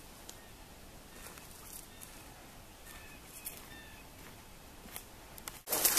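Faint footsteps on a gravel dirt road, with a few soft bird chirps. Near the end a sudden loud rustling noise cuts in.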